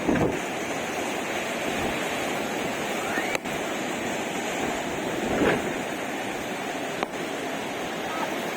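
Steady rush of strong wind and falling water at a reverse waterfall, where the wind blows the water back upward. Two faint clicks stand out, about three and a half seconds in and again about seven seconds in.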